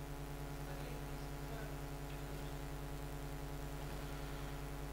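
Room tone: a steady low electrical hum with a faint, evenly pulsing low note and light background hiss.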